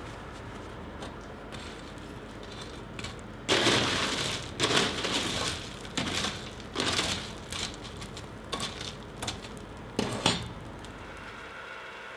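Forge coal being raked and piled onto the fire: a run of irregular crunching, scraping and clinking as the lumps shift, over a steady low hum that drops away near the end.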